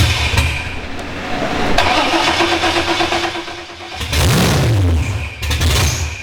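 A big V8 without exhaust is cranked and catches about four seconds in, revving briefly before it settles into a steady idle. The motor struggles to idle because it is hitting the idle airflow limit set in the computer.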